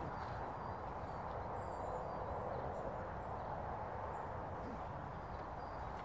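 Outdoor ambience: a steady rushing background noise, with a few faint high bird chirps now and then.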